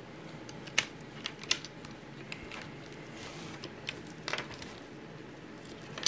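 A few sharp plastic clicks and taps from handling a USB mouse and its plug at the side of a laptop, over a faint steady hiss.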